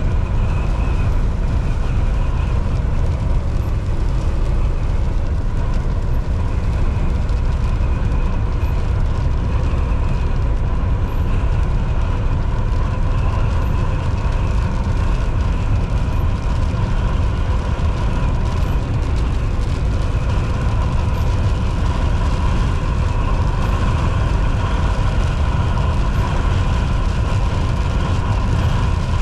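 Volvo VNL 760 semi truck cruising at highway speed: a steady engine drone and road noise, with a faint, even whine above it.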